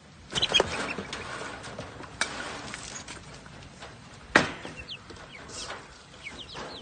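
Young chickens calling with short high peeps, over a clatter near the start and a single sharp knock a little past halfway, the loudest sound, as the cage and its waterers are handled.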